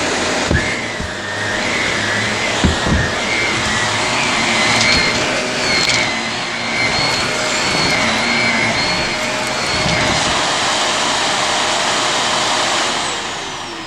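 Vacuum cleaner motor running with a steady rush of air and a high whine, with a couple of brief knocks about half a second and three seconds in. Near the end it is switched off and the whine falls away as the motor winds down.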